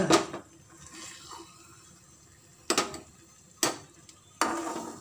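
Metal spatula clanking against a steel kadhai: a clatter at the start, then three sharp knocks about a second apart in the second half, as the cooked bharta is spooned out of the pan.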